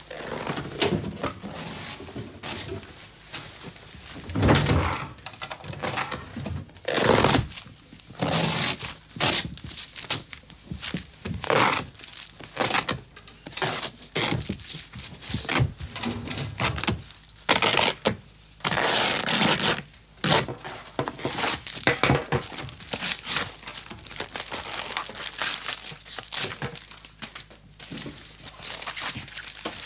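Repeated ripping and tearing: sofa upholstery fabric being slashed and torn open, then photographs and album pages being torn up and crumpled, with occasional thuds. The rips come in uneven strokes, some long and loud.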